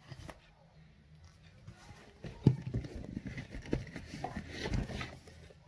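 Handbags being handled and moved: rustling and irregular soft knocks, with one sharp knock about two and a half seconds in.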